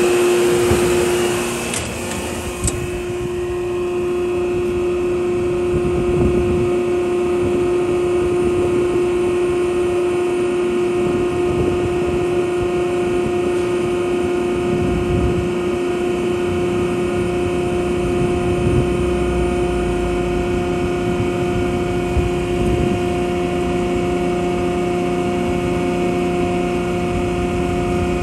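Palatek Sullivan 20 hp rotary screw air compressor running steadily under power, a steady hum with a whine. A high hiss fades out about two seconds in.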